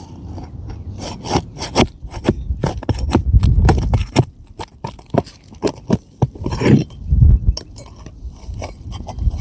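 Metal hand tool scraping and clicking under asphalt shingles as roofing nails are pried loose, with a few dull low thumps.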